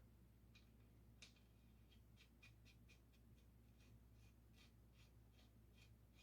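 Faint, irregular metallic clicks of a wrench working the rear axle nut on a 1969 Triumph Bonneville, about two or three a second, snugging it up loosely before chain adjustment. A steady low hum sits underneath.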